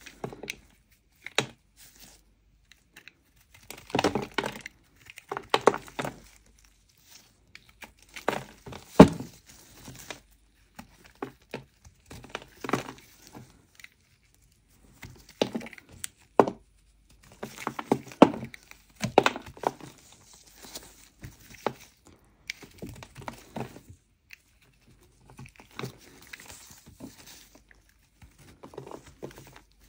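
Snap-off utility knife blade scraping the crust off a large lump of dry clay in irregular strokes, with crumbs crackling off and a few sharp cracks, the loudest about nine seconds in.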